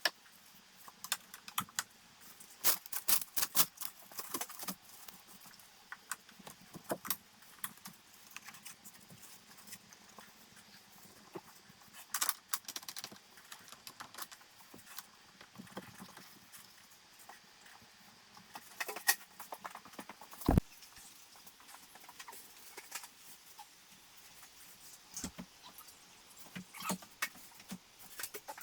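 Irregular clicks, taps and light knocks of hardware being handled and fitted while the other side of a Bestop Sunrider soft top's rail and seals go on, with one sharper knock about twenty seconds in.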